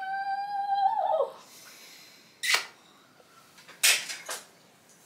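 A high, drawn-out vocal note held for about a second, falling away at the end, followed by two brief rustling sounds.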